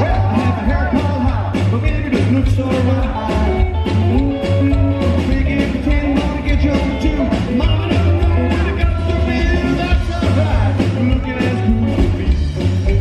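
Live rockabilly band playing: a male lead vocal over hollow-body electric guitar, upright bass and drums, with a steady driving beat.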